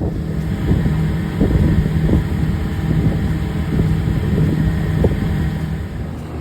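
Boat motor running steadily while underway, with wind buffeting the microphone.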